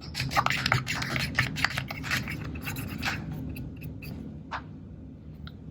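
Wooden toothpick scratching and scraping in the crevices of a plastic camera body's battery compartment, picking out excess plastic-restorer cream. There is a quick run of short scratches for about three seconds, then a few fainter ones.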